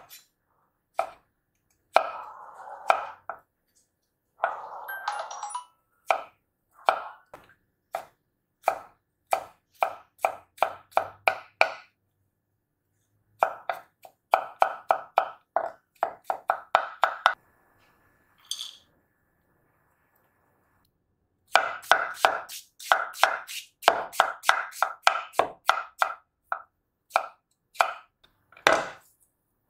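Kitchen knife chopping food on a cutting board: runs of quick, even strokes, about two to three a second, broken by short silent pauses.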